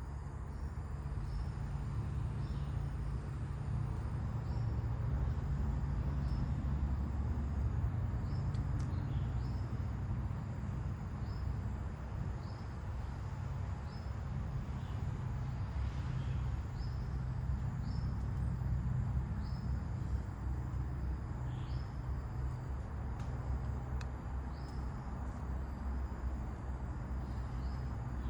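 Wind blowing, with a steady low rumble, while a bird repeats short, high chirps every second or so.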